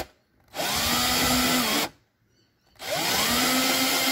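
Cordless drill driving a hole saw through the bumper from the back side, finishing a reversing-sensor hole. It runs in two short bursts of a little over a second each, rising in pitch as it spins up, with brief pauses between.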